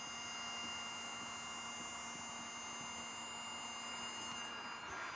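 Steady low electrical hum with a faint high whine, fading near the end.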